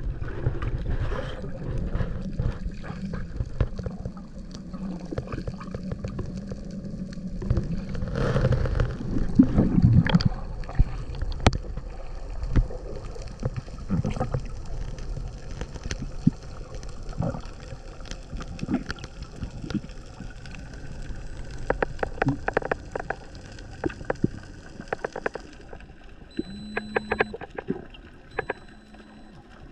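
Underwater sound: bubbles and churning water near the surface in the first ten seconds, then a quieter murmur of deep water with scattered sharp clicks. Two short high beeps come near the end.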